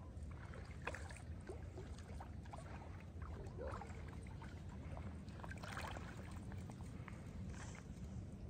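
Light water splashing and sloshing with small knocks, over a steady low rumble, as a hooked carp is worked in to be netted.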